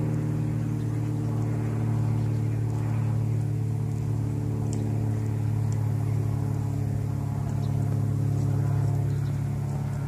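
Steady, low engine hum from a docked ship's machinery running at idle, a constant drone with no change in speed.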